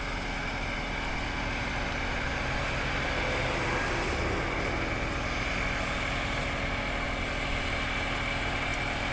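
A sugarcane harvester running steadily, with a constant high whine over its engine.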